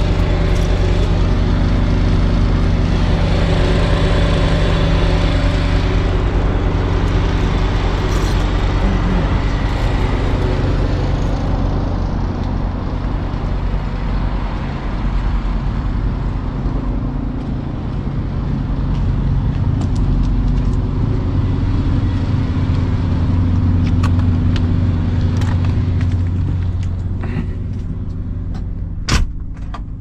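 An engine running steadily with a low, even drone. A sharp bang comes near the end, and the engine sound is quieter after it.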